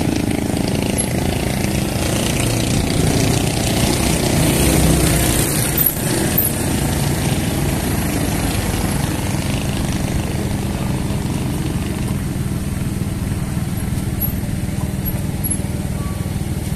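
Motorcycle engines running steadily while riding, with road and wind noise over the microphone; a brief knock about six seconds in.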